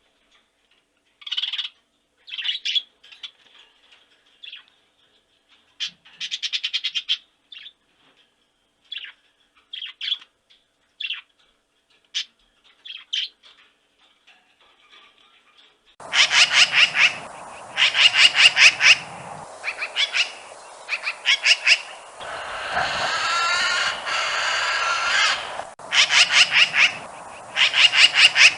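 High-pitched animal calls. First come short, scattered chirps and squawks with silences between them. About halfway through, a different recording begins, with steady background hiss, rapid trains of chirps and one longer warbling call.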